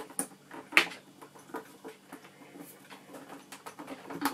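Plastic housing of a Super 8 projector being handled as it is opened: scattered light clicks and knocks, with a sharp knock about a second in and another near the end.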